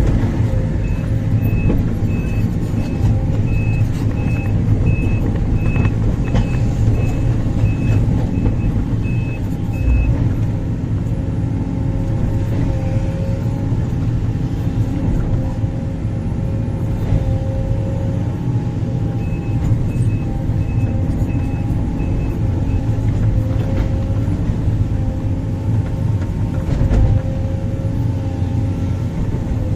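Large excavator's diesel engine and hydraulics running steadily under working load, with a deep drone. A backup alarm beeps about twice a second from about a second in until about ten seconds, and again around twenty seconds in.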